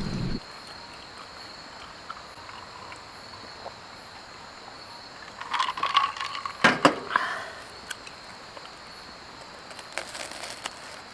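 A steady high insect trill, with a short run of clatter and knocks about halfway in and a few light clicks near the end, typical of cookware being handled.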